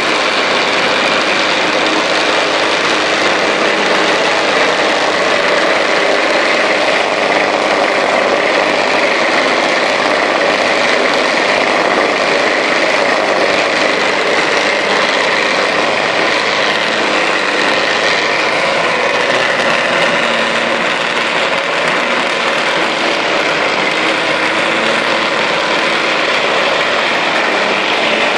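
Electric rug-dusting machine (a motorised rug beater) running as it is pushed across a rug: a loud, steady mechanical noise.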